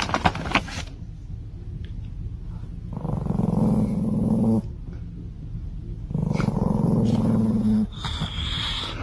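A pet's low growl, sounding twice, each time for about two seconds.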